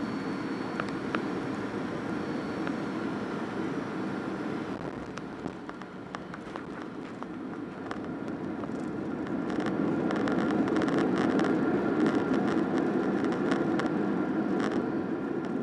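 Cabin noise inside a Boeing 737-800 rolling along the runway after landing: a steady rumble of the engines and wheels with light rattles, growing louder about two-thirds of the way through.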